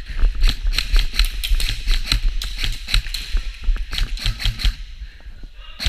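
Airsoft guns firing: an irregular run of sharp snapping shots, several a second, easing off briefly near the end.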